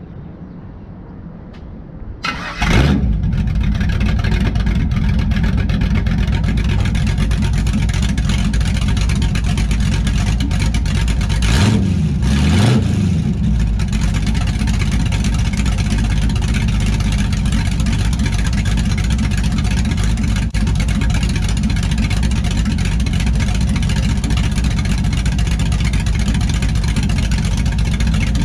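Chevrolet S10's 5.3 L LS V8 with a BTR stage 2 truck cam, heard at the exhaust tip: it cranks and fires about two seconds in, then idles steadily. One brief rev around the middle rises and falls back to idle.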